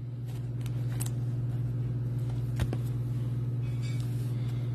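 A steady low hum, like a fan or other room machinery. One sharp tap comes about halfway through, and near the end there is a brief crinkle as a card pack is handled.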